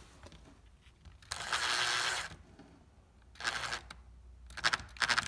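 Small electric drill driving screws in three short bursts, through the plastic feet of a blind into a uPVC window's glazing bead. The later bursts carry a fast clicking.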